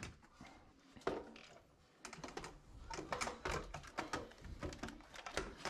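A quick, irregular run of light clicks and taps, several a second, starting about two seconds in: hands handling and fitting parts of a front-load washer's door assembly.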